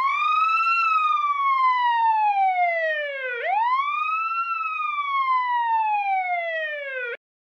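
Police siren sounding the wail tone: two slow cycles, each rising quickly to a high pitch and then falling slowly, cutting off suddenly near the end.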